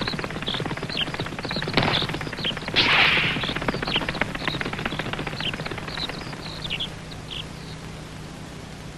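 Cartoon sound effect of small birds chirping in short falling peeps over a fast, rattling flutter of wingbeats, with a louder rush about three seconds in. Both fade away as the birds fly off, the chirps stopping a couple of seconds before the end.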